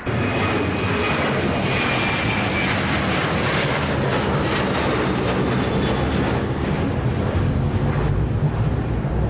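Airliner engine noise from a passing aircraft, a dense steady rush with a faint high whine in the first few seconds and a low rumble that grows stronger in the second half.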